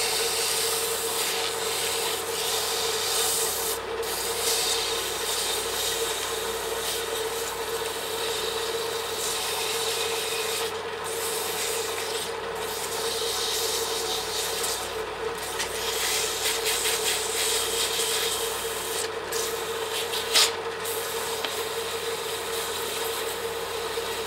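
220-grit sandpaper held against a small wooden workpiece spinning on a lathe: a steady scratchy hiss of abrasive on wood over the lathe's steady hum. The hiss breaks off briefly a few times.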